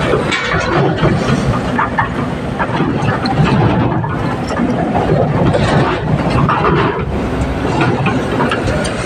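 Hydraulic excavator's diesel engine running steadily under load, with scattered metallic clanks and knocks from the machine working.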